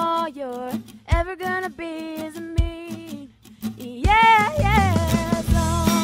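A woman singing a slow song in long held notes with vibrato, over a sparse accompaniment of low plucked notes that fills out into fuller chords about four seconds in.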